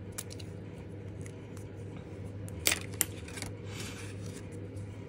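Two sharp plastic clicks a third of a second apart as a gel pen's cap is handled, then a soft rustle as a scrap of black card slides over paper, over a steady low hum.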